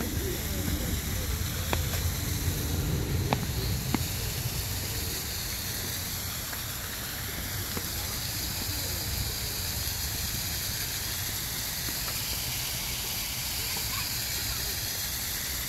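Steady rush of running water from a zoo pool, with a few sharp ticks in the first four seconds.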